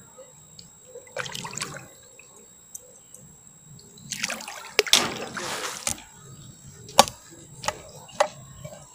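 Hooked crucian carp thrashing and splashing at the water surface in bursts, the longest a couple of seconds long around the middle, with three sharp clicks near the end.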